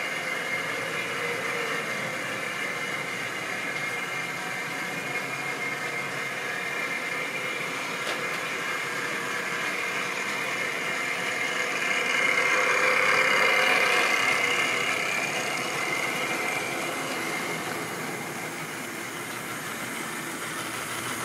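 Model railway train running along the track: a steady whirring of the locomotive's small electric motor and the rumble of its wheels. It grows louder a little past halfway, then fades somewhat.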